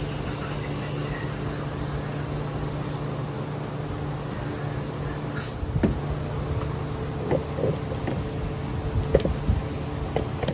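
Aerosol brake cleaner hissing as it is sprayed through carburetor parts to clear the passages: a hiss for about the first three seconds, then a short burst midway. Light clicks and knocks of small carburetor parts being handled follow in the second half, over a steady low hum.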